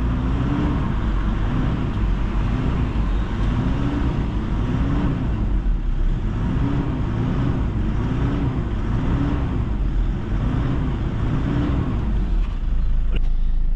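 Toyota Fortuner turbodiesel SUV driving on the road during a test drive: a steady low rumble of engine and road noise, with a low hum that swells and fades about once a second.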